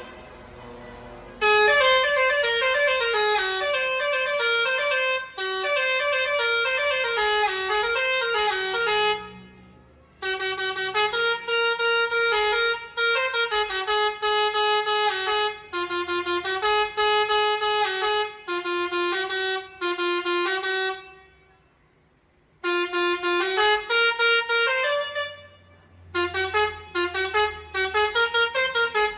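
Basuri-type telolet bus horn playing a flute-like melody of stepped and gliding notes, in long phrases broken by short pauses about nine and twenty-one seconds in.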